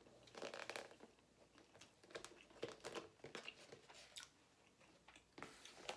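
Faint chewing of a cheesesteak sub, with scattered soft clicks and crackles from the mouth.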